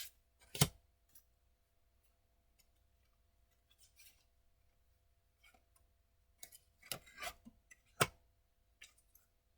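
Tarot cards being handled on a table: a few sharp snaps and taps, the loudest about half a second in and near the end, with a short cluster just before it.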